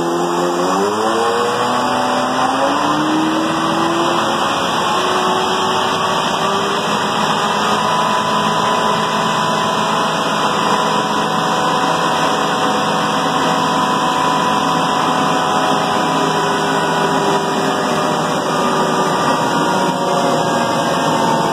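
Eaton 54 series hydrostatic pump and two-speed motor running on a test stand, loaded up toward drive pressure: a whine that rises in pitch over the first few seconds, then holds steady.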